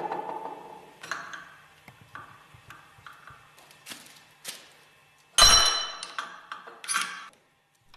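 Steel parts of a Westfalia separator spindle clinking as the pulled bearing cover and angular contact ball bearings are worked off by hand: a metallic ring fading over the first second, light clicks, then a loud ringing clink about five and a half seconds in and a shorter one about a second later.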